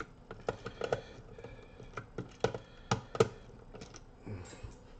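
Irregular clicks and taps of wires and connectors being pulled off a Pioneer car amplifier's terminals, the sharpest click about three seconds in.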